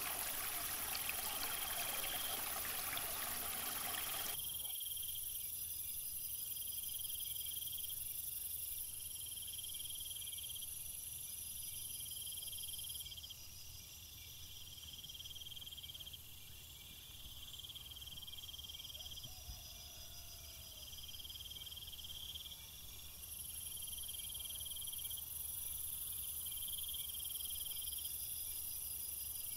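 A small artificial waterfall splashing onto rocks, cutting off abruptly about four seconds in; after that, insects chirping in regularly repeating trills.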